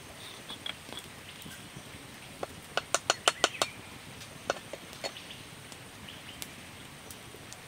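A quick run of sharp clicks and taps, about eight in just over a second, then a few single clicks, from small objects being handled and tapped together over a cup. Faint bird chirps sound in the background.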